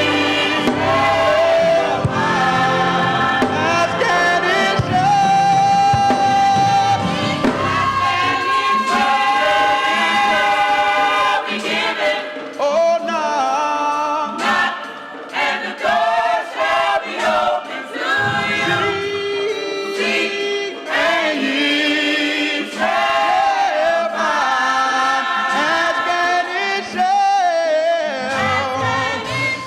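Church choir singing a gospel song, with the low accompaniment dropping away for a stretch in the middle.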